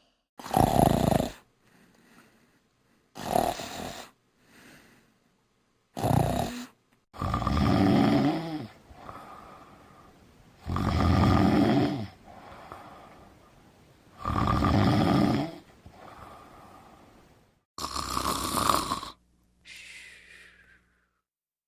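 Snoring sound effects played one after another: three short snores in the first seven seconds, then long, loud snores about every three and a half seconds, and a fainter snore near the end.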